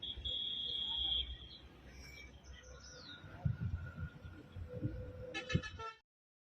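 Outdoor roadside traffic noise with a low rumble, a high steady whistle-like tone for the first second and a half, and a short horn-like toot near the end; the sound cuts off abruptly about six seconds in.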